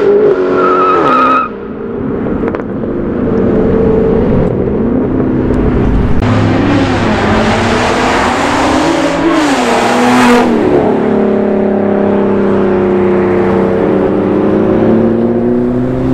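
Car engines revving hard as cars pull away. The loudness drops suddenly about a second and a half in, then the revs climb again while tires squeal for several seconds in the middle, before the engine settles into a steady run.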